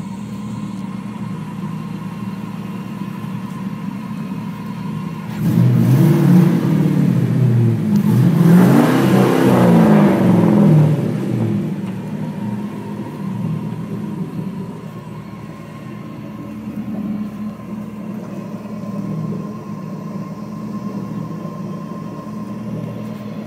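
Turbocharged Hemi V8 in a Ford F100 pickup revving hard for several seconds as the truck struggles in a mud hole, its revs rising and falling with a rush of noise at the peak, then dropping back to a steady run. The truck is stuck, its front locker not working.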